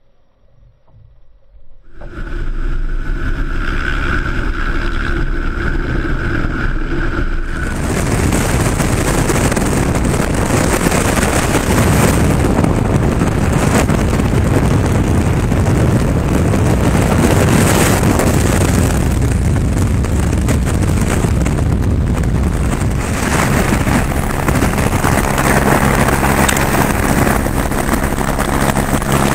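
Helicopter in flight, heard from a camera aboard. Loud wind rush on the microphone dominates from about eight seconds in. About two seconds in, a steady high whine and hum start. In the last few seconds the helicopter's steady low engine and rotor drone comes through more clearly.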